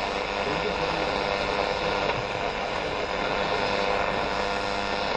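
AM radio receiver tuned to 1207 kHz on the medium-wave band, giving steady static and hiss with faint steady whistles underneath; no voice or music comes through.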